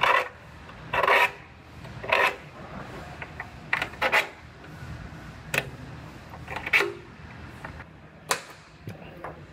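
Steel scribe scratching along sheet-metal body panels in a series of short strokes, roughly one a second, scoring the final cut line where the replacement panel overlaps the old one.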